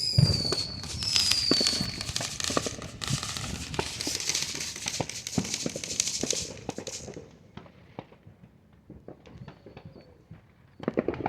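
Consumer fireworks going off: a boom right at the start and two short whistles that dip slightly in pitch, then several seconds of dense crackling that thins into scattered pops about seven seconds in.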